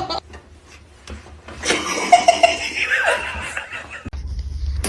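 People laughing in a burst that starts about a second and a half in.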